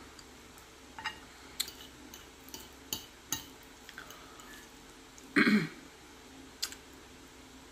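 Quiet eating sounds: scattered soft clicks of chewing and a metal fork, with one short throat clearing about five seconds in, the loudest sound.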